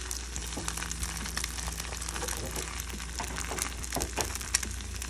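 Food sizzling and crackling in a frying pan, with many short irregular pops over a steady hiss.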